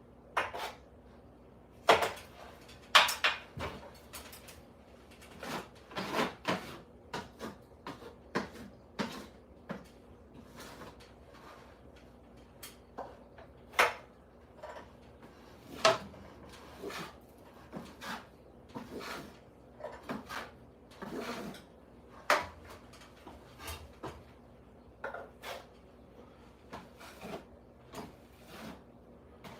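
Irregular knocks, clicks and short scrapes of hand tools and materials being handled during ceiling repair work, with a few louder knocks scattered through.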